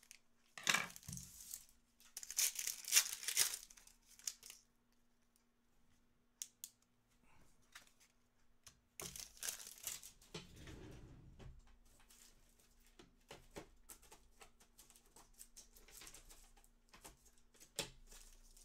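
Trading card packs being torn open, the wrappers crinkling, with light rustles and clicks of cards being handled. The loudest rips come about a second in, from two to four seconds in, and again around nine to eleven seconds in.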